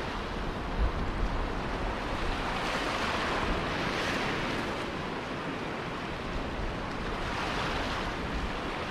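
Small sea waves breaking and washing up a shingle beach, a steady rush of surf that swells and ebbs as waves come in. Wind buffets the microphone with a couple of low bumps about a second in.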